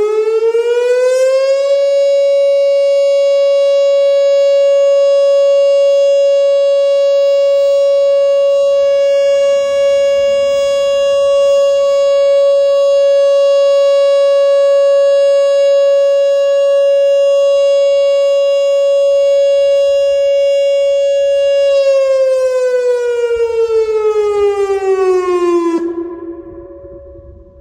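Whelen WPS-2906 electronic outdoor warning siren sounding its steady alert tone. The pitch rises over the first couple of seconds, holds steady for about twenty seconds, then falls away over about four seconds and cuts off sharply, leaving a faint tone trailing near the end.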